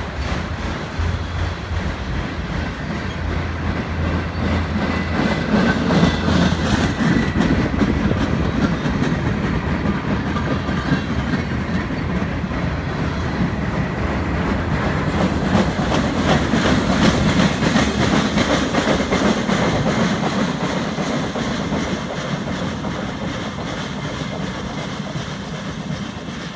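Norfolk Southern manifest freight train's autorack and empty flat cars rolling past close by: a steady rumble with the rapid clicking of wheels over the rail joints. It fades over the last few seconds as the end of the train pulls away.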